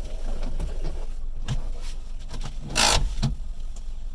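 A car's engine idling, heard from inside the cabin, with a few light knocks and one short, loud bang about three seconds in.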